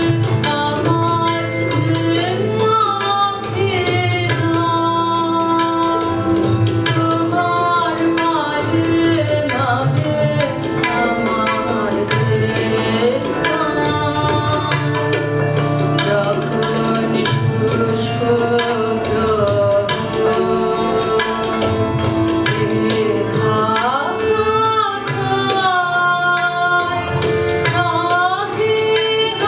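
Live Bengali song: women singing a slow melody into microphones, with a steady drum accompaniment underneath.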